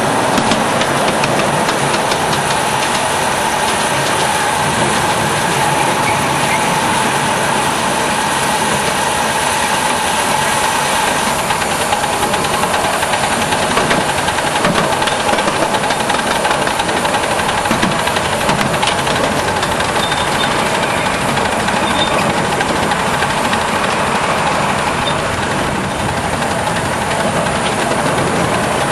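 Ride-on live steam miniature locomotive running along its track: a steady, dense rush of steam hiss and rapid mechanical clatter.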